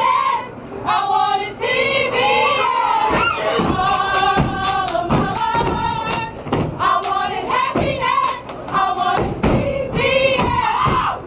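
A step team chanting in unison, with sharp stomps and claps of stepping cutting through the chant.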